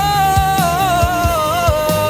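Background music from a Hindi film love song: a long held melody note that wavers in pitch over a steady drum beat of about two hits a second.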